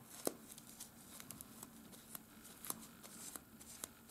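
Faint rubbing and a scattering of small, sharp clicks as a paper nail wipe is rubbed over a gel-coated nail tip by gloved fingers.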